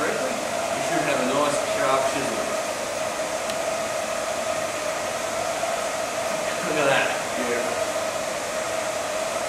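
A steady motor-like whir with a constant hum. A few brief fainter sounds sweep through it a second or two in and again about seven seconds in.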